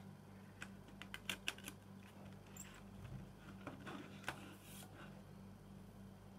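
Plastic CD jewel case being handled: a quick run of sharp clicks and taps about a second in and another few around four seconds, as the paper booklet is worked out of the lid's tabs, with a short paper rustle after. A faint steady hum sits underneath.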